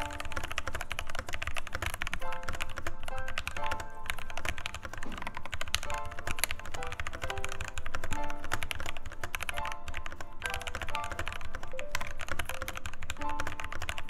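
Fast typing on a Keychron K6 mechanical keyboard fitted with lubed and filmed Gateron Ink Black V2 linear switches and lubed, clipped stabilizers: a steady stream of keystrokes. Soft background music plays underneath.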